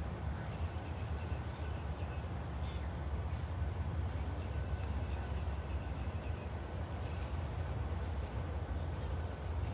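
Steady low outdoor background rumble, with a few faint, short, high bird chirps scattered through it.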